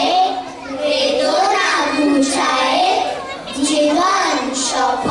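A group of young children singing a Bengali prayer song in unison into stage microphones, in a sing-song chant with short breaks between phrases.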